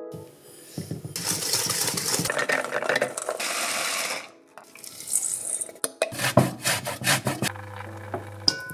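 Kitchen sounds of preparing a dough: a few seconds of rustling hiss, then, after a short pause, a quick run of clinks and taps of a utensil against a bowl.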